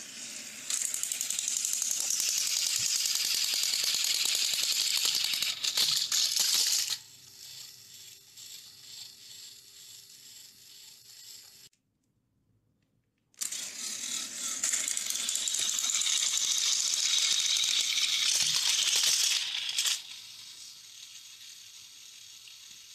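Battery-powered Plarail toy train running on plastic track, a steady high rattling clatter of motor gears and wheels. It comes in two long loud runs, with a quieter stretch and a brief dead-silent break between them.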